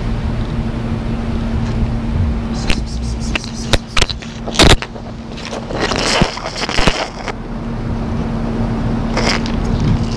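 Steady low hum with a run of sharp knocks and clicks about three to five seconds in, followed by scraping, rustling bursts: handling noise as the phone camera is moved about among dry leaves.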